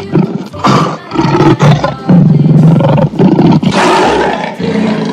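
Lion roaring: several loud, rough roars one after another.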